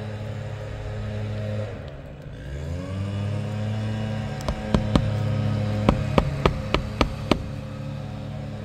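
A run of about ten sharp clicks and snaps over some three seconds, from a hammer against an asphalt shingle being pried loose from its seal. Under them runs a steady pitched drone that dips and climbs back in pitch about two seconds in.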